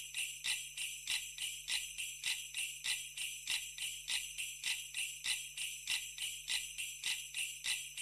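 Neck bells on draught bullocks pulling a cart, jingling in a steady rhythm of about three to four shakes a second.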